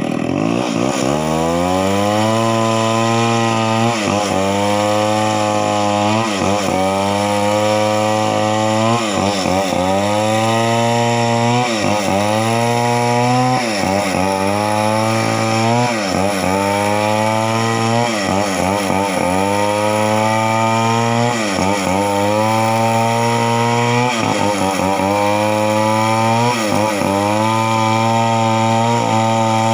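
Two-stroke chainsaw revving up about half a second in, then running at high speed with its pitch dropping sharply and climbing back about every two seconds, a dozen times over: the saw bogging as it loads up in a cut and recovering.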